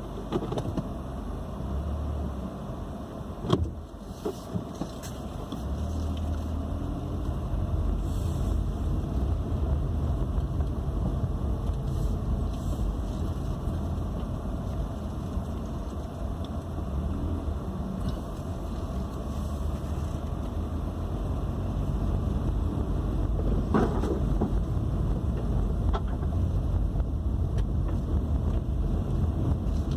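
Car driving, heard from inside the cabin: a steady low road-and-engine rumble that grows a little louder about six seconds in, with a sharp click a few seconds in.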